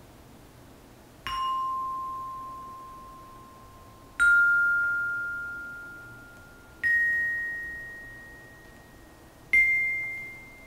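Metallophone (tekkin) struck with a mallet: four single notes a few seconds apart, each left to ring and fade, each pitched higher than the last. The first note is softer than the other three.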